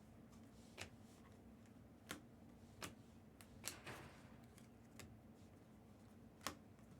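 Trading cards being handled one by one: faint, irregular clicks and taps as cards are flipped and set down, about eight over several seconds, over a low room hum.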